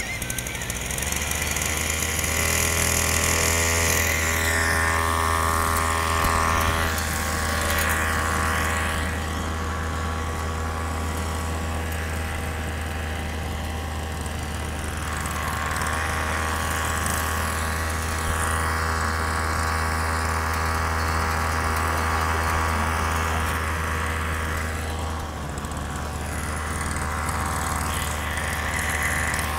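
Small weedeater (string-trimmer) engine driving a motorized ride-on board, running steadily, its pitch shifting a little as it speeds up and eases off.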